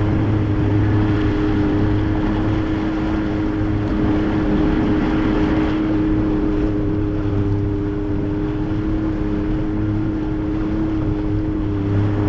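Yamaha 50 outboard motor running at a steady, unchanging speed, with an even hiss of wind and water around it.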